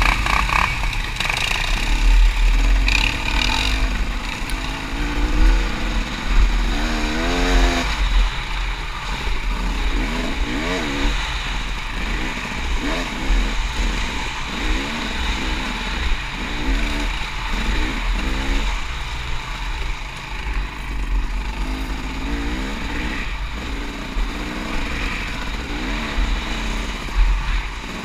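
ATV engine revving up and dropping back again and again while riding, with wind buffeting the microphone.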